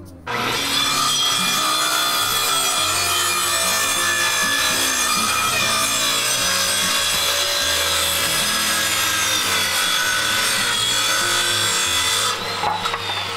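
Corded circular saw running under load as it makes one long cut along a wooden deck board, steady for about twelve seconds. Near the end the cut finishes and the blade winds down with a falling whine.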